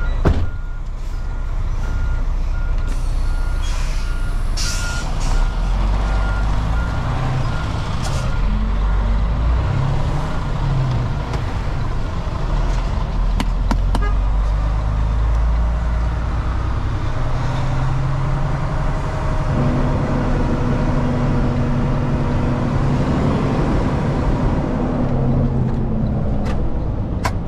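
Semi-truck diesel engine heard from inside the cab, running as the truck pulls slowly through a lot, with a heavy low rumble. A repeated high beep sounds through the first several seconds, and the engine note rises about two-thirds of the way in, then drops near the end.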